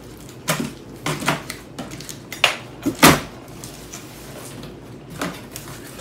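Cardboard box being cut and pulled open: about half a dozen sharp cracks and scrapes of cardboard and tape, the loudest about three seconds in.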